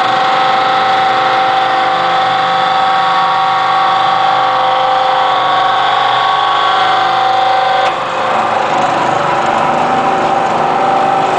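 Hydraulic power unit of a Y81-130 metal baling press running with a loud, steady whine made of several tones. About eight seconds in there is a click, and the sound turns rougher and noisier.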